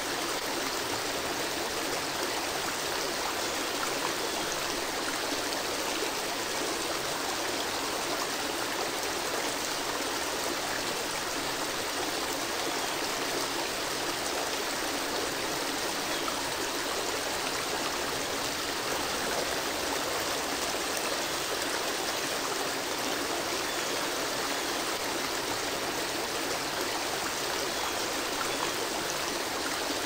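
Water cascading over a rocky waterfall into a pool: a steady, even rush of falling and flowing water that does not change.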